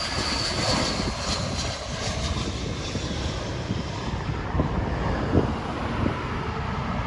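Jet engines of an arriving Airbus A319-132, IAE V2500 turbofans, running as a steady noise with a faint high whine that slides slightly lower over the first few seconds.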